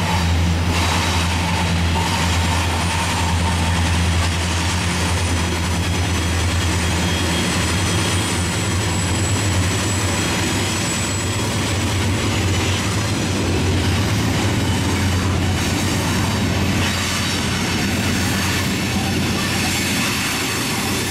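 Norfolk Southern freight train passing, led by several diesel-electric locomotives: a steady low engine drone over the rumble of wheels on rail. The drone weakens in the last few seconds as flatcars and covered hoppers roll by.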